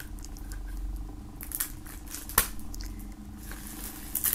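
Pocket knife blade slitting the plastic shrink-wrap along the edge of a CD jewel case: light scratching, crinkling and ticking, with one sharp click about halfway through.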